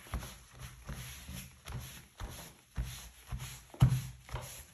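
Wet cotton cloth wiped back and forth along a Douglas fir board in rhythmic strokes, about two a second, each a short scratchy swish with a light knock. The wood is being wetted to raise the grain before oiling.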